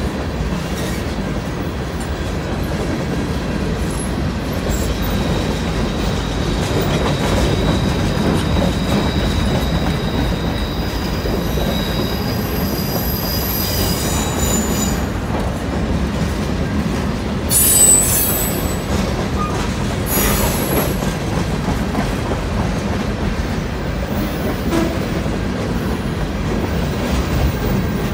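Freight train cars rolling past a level crossing, a steady low rumble of wheels on rail. High, thin wheel squeal sings over it for several seconds, with a short, louder screech a little past halfway.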